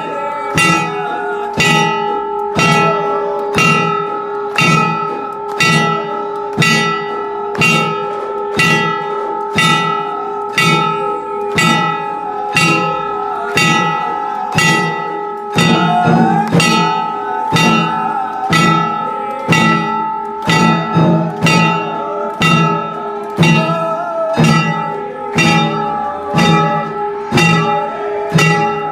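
Temple aarti music: a steady beat of sharp, ringing strikes, about two to three a second, over a held steady tone.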